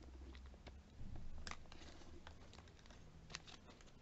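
Faint clicks and taps of makeup containers and an applicator being handled, over a steady low hum.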